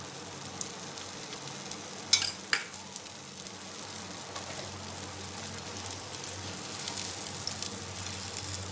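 Sweet cheela batter of wheat flour and jaggery sizzling steadily on a hot nonstick tawa. A couple of sharp clicks come about two seconds in.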